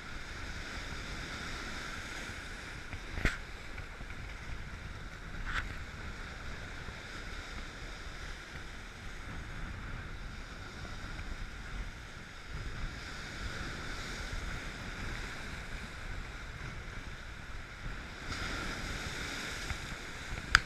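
Lake breakers washing and splashing against shoreline rocks in a strong wind, with wind noise on the microphone. Two sharp knocks come a few seconds in, and a bigger surge of breaking water near the end.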